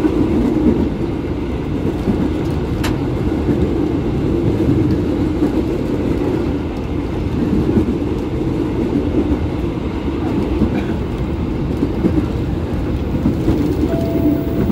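Steady running noise heard inside a KRL Commuterline electric commuter train car while the train is moving: a continuous low rumble from the car and its wheels on the rails.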